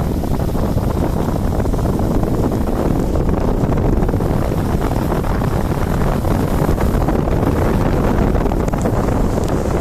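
Steady rumble of a car on the move, with road noise and wind buffeting the microphone.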